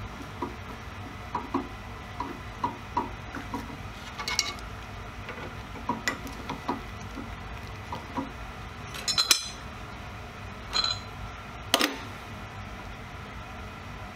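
Light metallic clinks and taps of a bimetal hole saw being fitted to the drill press spindle, with a few louder metal clatters in the second half.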